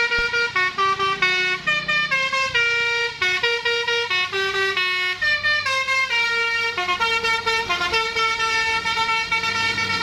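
Bus's Basuri telolet musical horn playing a fast melody: a continuous string of short notes stepping up and down in pitch.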